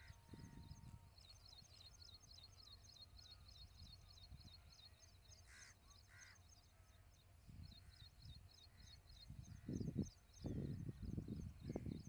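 Faint outdoor field ambience: a continuous fast, high-pitched chirping in the background, with low rumbling gusts of wind on the microphone that grow stronger near the end.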